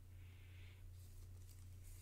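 Near silence: room tone with a low steady hum.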